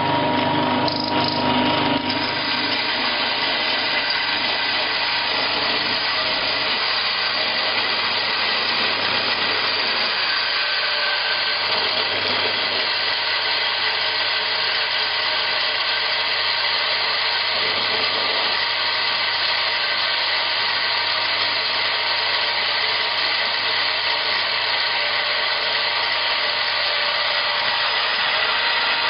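Small stainless steel grinding machine running steadily, a constant even whirring with a faint steady whine over it, a little louder in the first two seconds.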